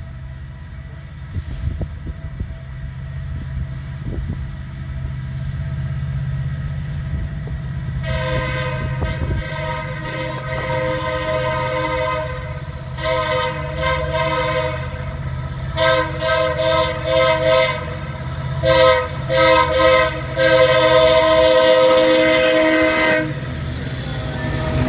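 A loaded coal train's EMD SD70ACe diesel locomotives rumble as they approach. From about a third of the way in, the lead locomotive's air horn sounds several blasts with short gaps between them, warning a grade crossing, and the last blast is held for a few seconds. Near the end the lead locomotive passes close by.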